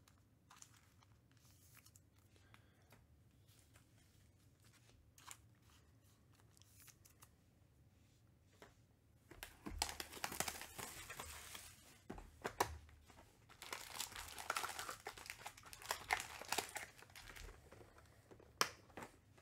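A 2021 Panini Chronicles Baseball hobby box being torn open, with its foil-wrapped card packs crinkling as they are handled. It starts about halfway through, after a quiet stretch with a few light taps.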